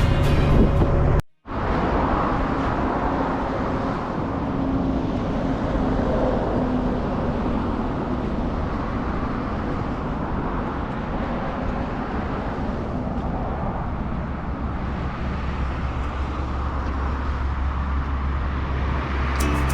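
Background music ends about a second in. Then comes steady road and wind noise from a moving vehicle, with a deep rumble that grows stronger near the end.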